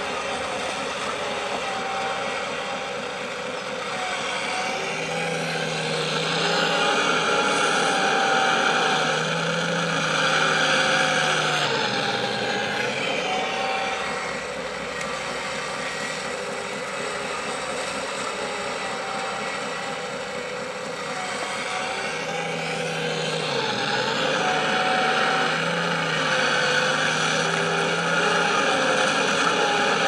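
Hydraulic pump and motors of an RC scale excavator running in a steady whine that swells in loudness and pitch twice, as the boom and bucket work under load, and sinks back in between.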